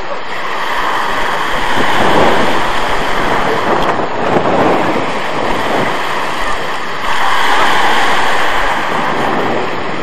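Small sea waves breaking and washing over a pebble beach, with wind buffeting the microphone. The surf grows louder about seven seconds in.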